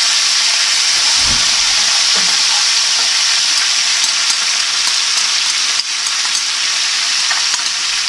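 Chopped garlic sizzling steadily in hot olive oil in a skillet, with light scraping clicks of a fork stirring it.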